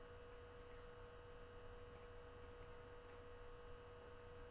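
Near silence: a faint steady hum with a thin steady tone.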